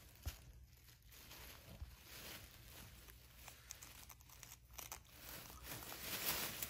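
Shih Tzu crumpling and tearing tissue paper with its mouth: an irregular rustling and crinkling that grows louder near the end.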